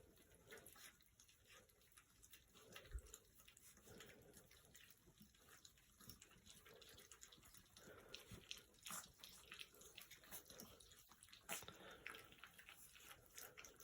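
Faint wet smacking and lapping of three-week-old puppies eating a mash of goat's milk, water and puppy food, with many small scattered clicks.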